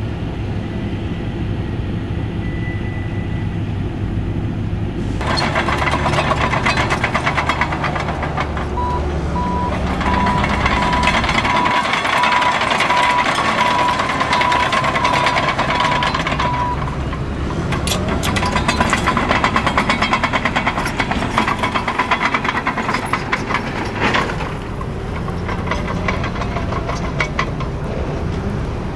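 Heavy diesel engine running for the first few seconds. Then, about five seconds in, a Caterpillar D6M LGP crawler dozer works fill: its diesel engine runs under load over a dense, rapid clatter of steel tracks, with a high whine through the middle.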